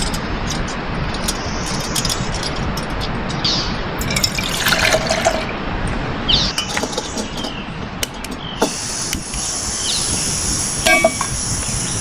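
Water being poured into a camp cooking pot, with light clinks of the cookware, as water is set up to heat on a camp stove. A steady high insect chorus starts about three-quarters of the way through.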